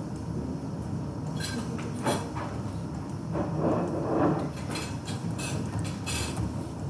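Steady low room hum with scattered sharp clicks and knocks, the loudest a dull knock around the middle; keyboard keystrokes come in near the end.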